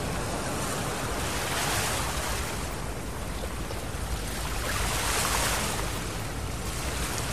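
Ocean surf washing onto a beach in a steady rush, swelling twice: about a second and a half in and again around five seconds in.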